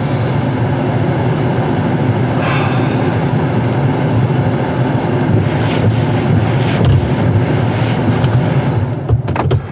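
Pickup truck driving, heard from inside the cab: steady engine and road rumble with a low hum, which drops away sharply near the end.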